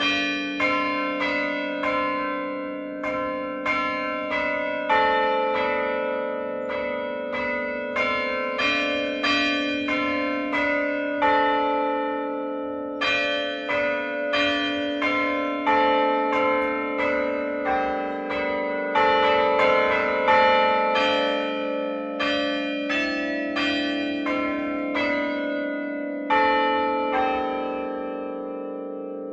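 Church tower bells rung one note at a time in an uneven sequence, each note ringing on under the next. The last note is left to ring out for the final few seconds.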